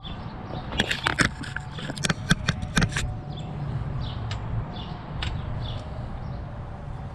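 Bicycle parts and tools being handled during a teardown: a quick run of sharp metallic clicks and knocks in the first three seconds, then faint short chirps every half second or so.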